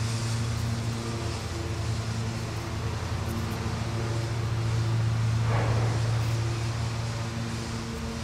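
Honeybees humming steadily around an opened hive, with a brief louder rush of noise about five and a half seconds in.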